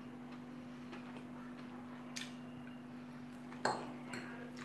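Quiet room with a steady low hum and a few light clicks, the clearest about three and a half seconds in.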